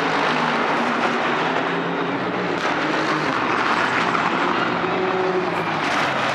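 Race car engines running at speed on the circuit, heard as a continuous dense engine noise with no single pass standing out.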